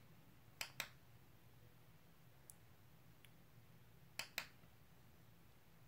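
Near silence with faint room tone, broken by two quick double clicks: one about half a second in, the other about four seconds in.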